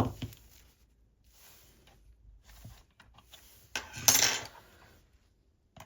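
Small metal hand tools and screws clinking on a workbench during reassembly: a sharp click at the start, a few faint taps, then a short clatter about four seconds in.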